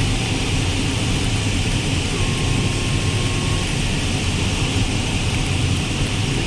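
Steady rushing airflow noise in a glider cockpit during a fast final glide, with a faint short steady tone about two seconds in.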